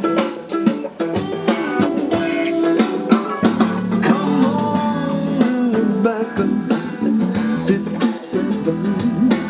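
Music with guitar and drums, playing steadily at full level.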